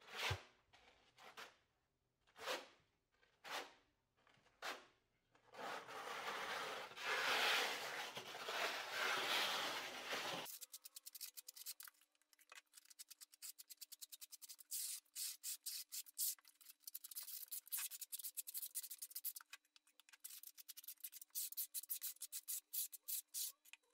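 Steel trowel scraping and spreading tile adhesive across a floor: separate strokes at first, then a longer continuous spread. From about ten seconds in, many quick short scrapes as the adhesive is combed into ridges with a notched trowel.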